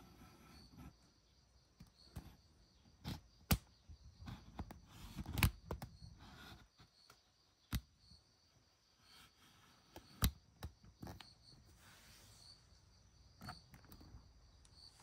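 Faint insect chirping, a steady high trill pulsing about twice a second, with scattered sharp clicks and knocks.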